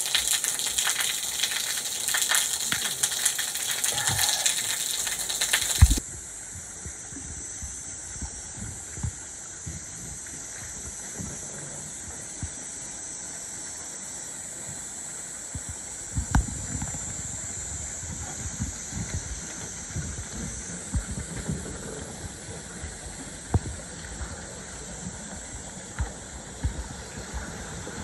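Water falling in a thin stream onto wet rock, a loud steady hiss that cuts off about six seconds in. Then a wooden water wheel turning, water splashing off its paddles in a quieter steady rush with scattered low knocks.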